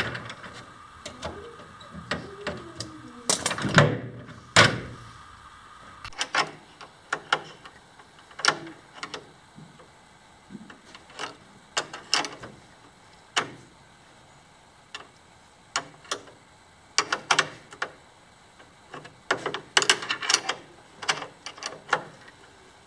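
Metal wrench working a bolt on a bearing housing fastened to a metal frame: irregular sharp metallic clicks and clinks, some in quick runs, with a stretch of scraping and rattling in the first few seconds.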